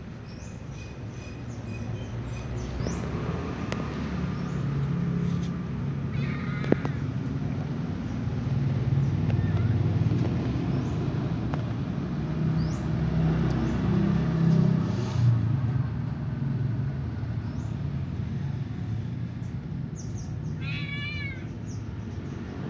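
Domestic cat meowing now and then, the clearest meow coming near the end, over a low steady rumble.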